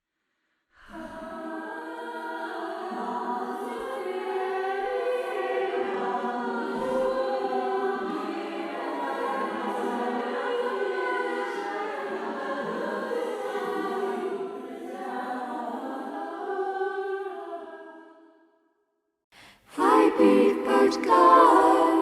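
AI-generated choir singing, a generated sound clip played back; it starts about a second in, runs steadily and fades out, then a second, louder vocal clip starts shortly before the end.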